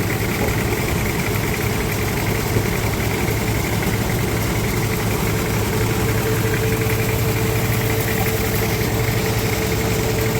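Sawmill machinery running steadily: a constant engine drone with a steady higher hum, unchanging throughout.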